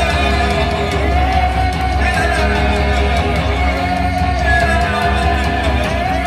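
Live band music: strummed guitars and singing over a steady low drone.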